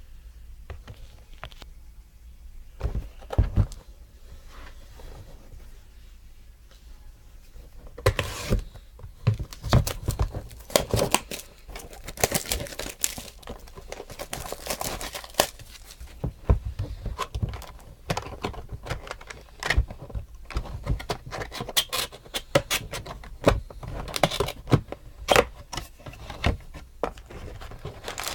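Trading-card packaging being opened and handled: cardboard and pack wrappers tearing and crinkling, with clicks and taps from the cards. A couple of knocks come about three seconds in, and the handling turns busy and continuous about a third of the way through.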